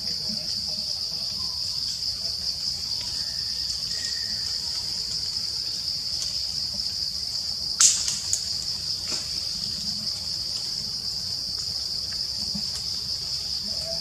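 Steady high-pitched drone of an insect chorus in the forest, with a single sharp snap about eight seconds in.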